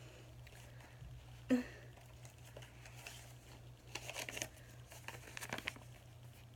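Paper and wallet contents rustling and crinkling as a hand rifles through a wallet and draws out a dollar bill, in bursts about four seconds in and again near the end, with a few light clicks. A brief sharp sound about a second and a half in, over a steady low hum.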